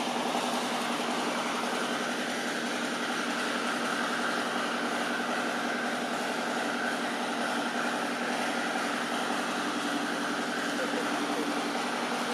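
A steady droning hum over an even background hiss, with no breaks.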